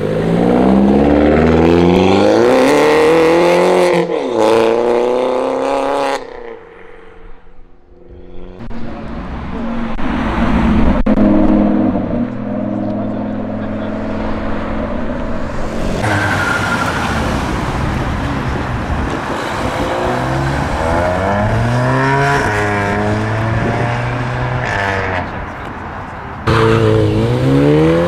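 Tuned Volkswagen and Audi cars accelerating away one after another. Each engine's note climbs with the revs and drops at gear changes, with a brief lull a few seconds in.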